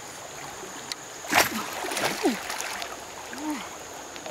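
Bamboo fishing spear jabbed into a shallow river, with one sharp splash about a second and a half in, over the steady rush of flowing water.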